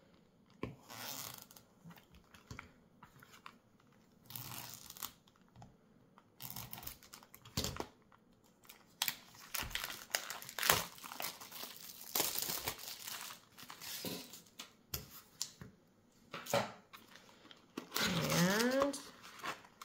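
Plastic shrink wrap on a cardboard trading-card box being cut with scissors and torn off by hand, crinkling and tearing in scattered bursts.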